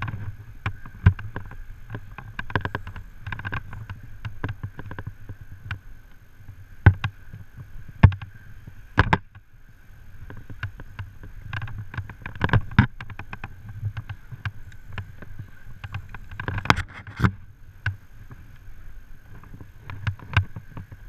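Abseiling gear working: rope running through a metal descender, with irregular creaks, clicks and knocks from the hardware and gloved hands as the abseiler lowers down the wall. Several sharper knocks stand out among them.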